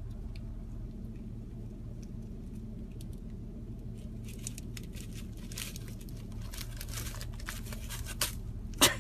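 Thin plastic bag crinkling and rustling as a marmoset handles it and a food pouch, in a run of rustles starting about four seconds in, then one sharp knock just before the end. A steady low hum of the car runs underneath.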